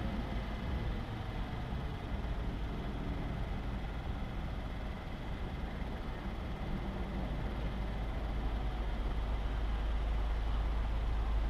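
Car driving slowly, its engine and tyre noise picked up by a camera mounted on the outside of the car. A low rumble grows louder over the last few seconds.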